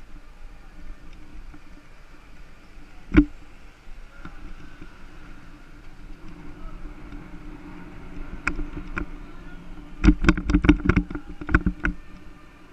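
Bicycle rolling along a city street, heard from a camera mounted on the bike, with a steady rolling hum. One sharp knock comes about three seconds in, and near the end there is a quick run of rattling clacks.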